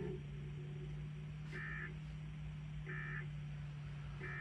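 EAS End of Message tones: three short bursts of SAME digital data (the NNNN code) warbling between two pitches, evenly spaced a little over a second apart, over a steady low hum. They signal that the emergency alert test message has ended.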